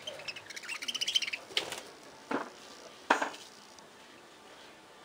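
A flock of budgerigars chattering: a fast, clicky warble for the first couple of seconds, then three short sharp calls, the last the loudest, before the flock quiets down.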